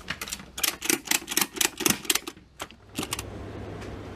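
A cargo tie-down strap ratchet being worked: a quick run of about a dozen sharp clicks, roughly four a second, that stops about three seconds in. A steady low hum from the aircraft follows.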